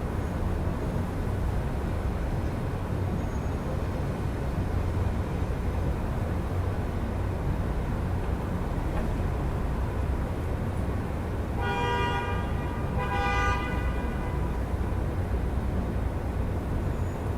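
Steady rumble of city traffic, with a car horn honking twice in quick succession about two-thirds of the way through.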